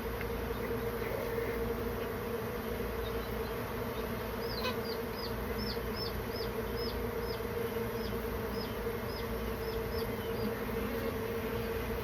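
A honeybee colony humming steadily, the dense buzz of many bees at once. About halfway through, a run of short high chirps sounds faintly over it.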